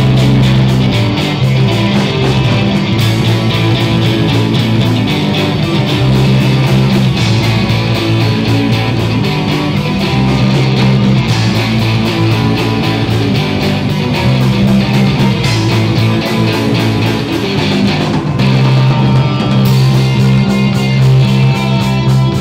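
Live rock band playing: electric and acoustic guitars, bass guitar and drum kit, with steady drum hits throughout.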